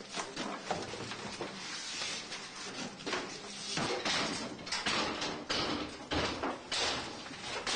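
Demolition of an old interior wall by hand: wooden lath and plaster being torn out, giving a run of sudden knocks, cracks and scrapes, with the loudest crashes a little past the middle.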